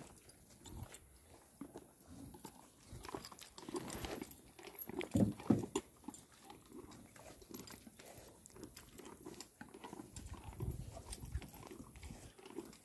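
Zebu cattle eating from a plastic tub: irregular chewing and crunching with scattered small knocks, busiest around the middle.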